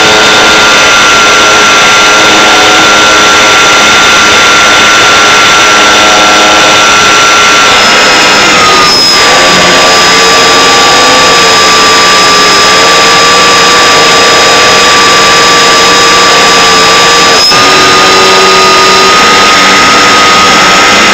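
Electric RC glider's brushless motor and propeller running under power, a steady whine heard from the onboard microphone. The pitch drops a step about eight seconds in and rises again about eighteen seconds in as the throttle changes.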